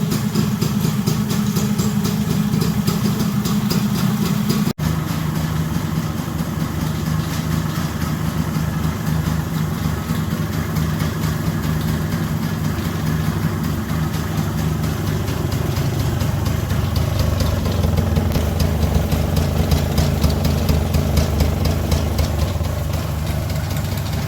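Enfield Fury's single-cylinder two-stroke engine running at idle, steady throughout. A sudden break a little under five seconds in marks a cut; after it the engine runs on, a little fuller and lower toward the end.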